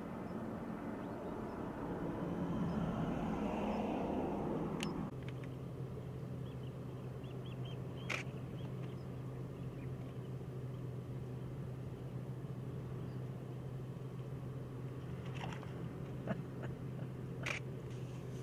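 A vehicle engine running steadily as a low hum. Over the first five seconds a louder rushing noise lies on top of it and stops abruptly. A few short, sharp sounds come later, about eight seconds in and twice near the end.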